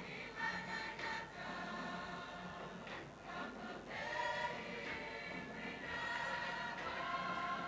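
A group of performers singing together in chorus, with held notes changing in steps.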